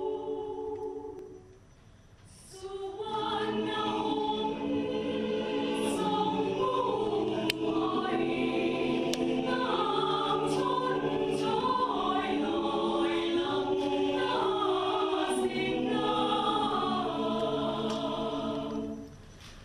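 Mixed a cappella choir singing a Thai royal barge song (kap he ruea) in close harmony with no instruments. A held chord fades out about a second in, then the choir comes back in after a short pause and sings on with shifting chords until near the end.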